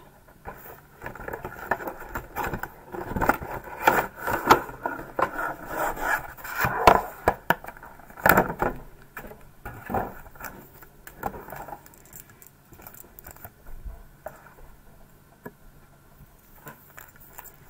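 Cardboard collection box and its clear plastic tray being opened and handled: irregular scraping, crinkling and clicking, loudest in the first half and dying down to faint handling near the end.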